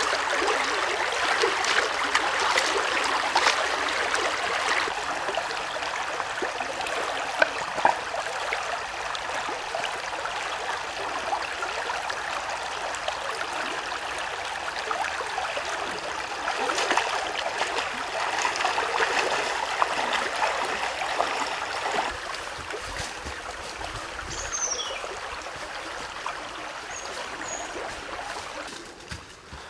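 Shallow stream running and trickling over rocks, with light splashing from hands scrubbing a flat stone in the water. The water sound drops quieter about two thirds of the way through, with a few short high chirps near the end.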